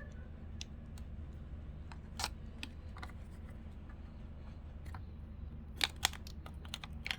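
Scattered sharp clicks and ticks of hands handling enamel pins and their packaging, two louder clicks about six seconds in, over a steady low hum.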